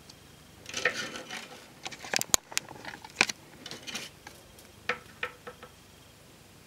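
Beaded wire pine branches being handled, the small glass beads knocking together in a run of light clicks and rustles that die away about six seconds in.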